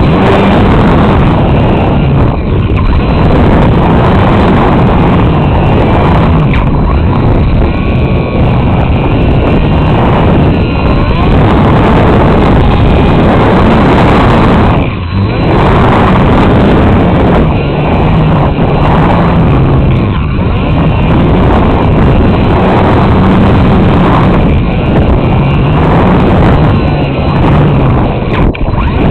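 Wind rushing and buffeting over the onboard camera's microphone of a small RC glider in flight, with the electric motor and propeller's whine wavering up and down in pitch underneath. It dips briefly about halfway through.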